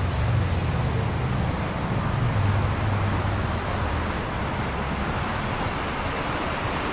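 Steady road traffic on a city street: cars passing, with a low engine rumble and tyre noise.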